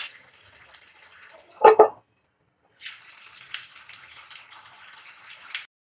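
Drumstick curry simmering in a pan: a steady high sizzling hiss with small pops, which cuts off suddenly near the end. Two short loud sounds come a little under two seconds in.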